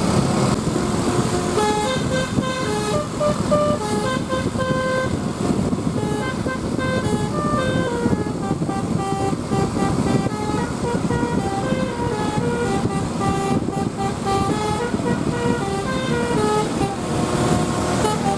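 Basuri 'telolet' multi-tone bus air horn playing a tune of short steady notes that step up and down in pitch, one after another, over the noise of the bus engine and road.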